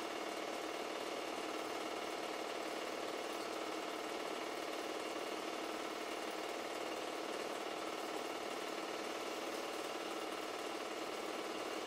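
Super 8 film projector running, its film transport making a steady mechanical rattle.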